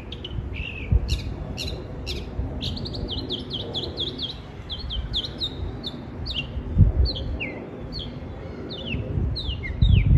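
Small birds chirping in a rapid series of short, falling chirps, over a low rumble with a few dull thumps, the loudest near the end.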